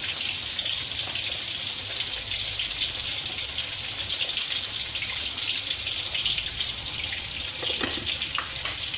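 Chicken in soy-sauce gravy boiling hard in a frying pan: a steady bubbling sizzle with crackles, a spatula stirring through it, and a few light knocks near the end as a glass lid goes on.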